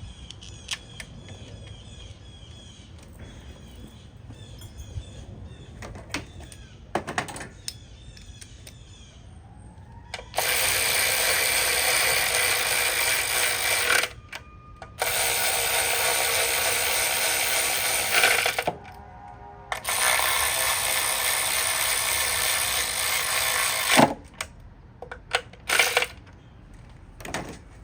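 Power tool running in three long bursts, starting and stopping abruptly, as coil-pack bolts are run in on a four-cylinder engine. A few faint clicks come before it.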